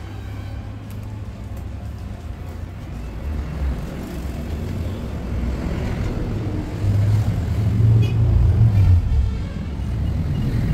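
A motor vehicle engine running with a low, steady rumble that grows louder about seven seconds in.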